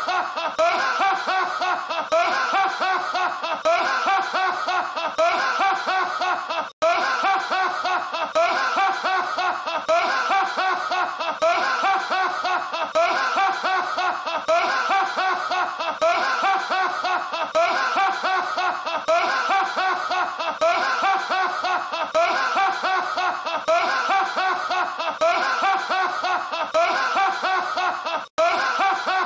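A man's deep, hearty laughter going on without a pause, in rapid repeated ha-ha pulses. It is one laugh looped over and over, and it cuts out for an instant about seven seconds in and again just before the end.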